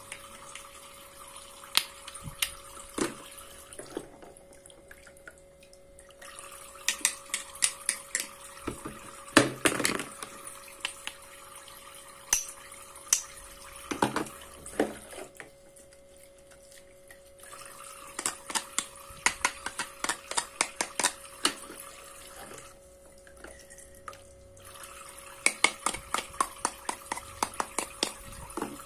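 A toy kitchen faucet runs a thin stream of water into a plastic sink, coming on in stretches. Plastic toy fruit pieces and a toy knife click and clatter in quick runs, with a few louder knocks, over a faint steady hum.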